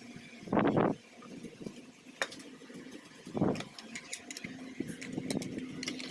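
Handling noise from a small plastic radio being put back together: two short scrapes and scattered light clicks and taps of parts and casing.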